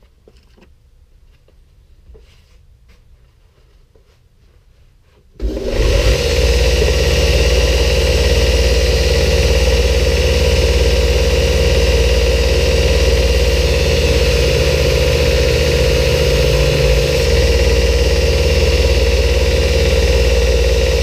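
Faint handling sounds, then about five seconds in a belt grinder switches on and runs steadily at speed, its 120-grit belt running over the flat platen while a heat-treated knife blade is held against it to clean it off.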